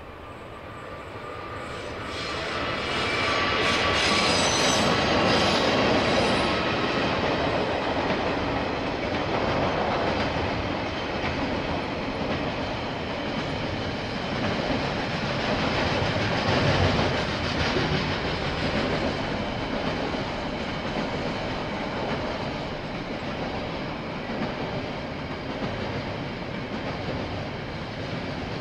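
KiwiRail freight train of container wagons passing over a rail bridge. It grows louder over the first few seconds and is loudest about four to six seconds in, with high-pitched tones over the rumble. Then comes the steady rolling noise of the wagons going by.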